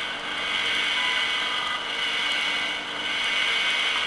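Philco 38-116 radio's loudspeaker giving steady shortwave hiss and static while tuned to 5 MHz, where the WWV time-signal station has faded out into noise.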